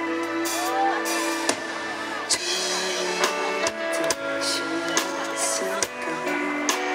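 Instrumental passage of a ballad between sung lines: sustained guitar and keyboard chords with a drum kit keeping time.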